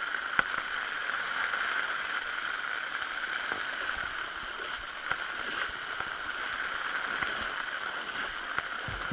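Steady rain falling on a flooded street, an even hiss, with a few faint clicks.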